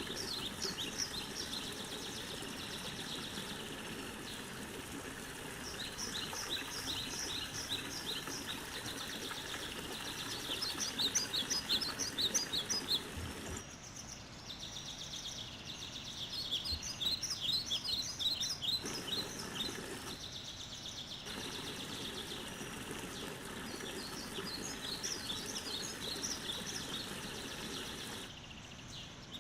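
Forest ambience sound effect from Twinmotion's sound library: birds chirping in quick high trills that come in bursts every few seconds over a steady background hiss, with a couple of brief dips where the hiss drops out.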